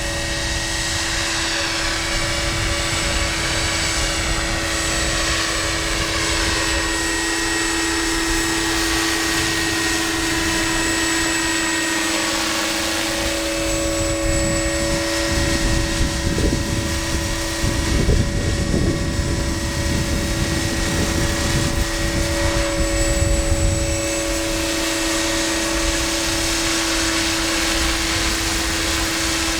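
RC scale model helicopter of an Aérospatiale SA 315B Lama flying, its motor and rotors giving a steady whine with sliding overtones as it moves about. Rushes of low noise come and go in the middle stretch.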